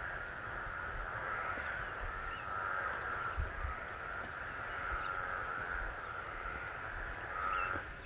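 Chorus of many frogs calling together at a breeding pond, a steady, dense din with a few higher chirps over it.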